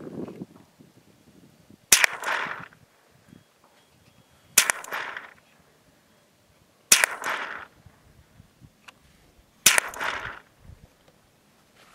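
Four single .22 LR shots from a Ruger 10/22 semi-automatic rifle, spaced about two and a half seconds apart, each followed by a short echo that trails off.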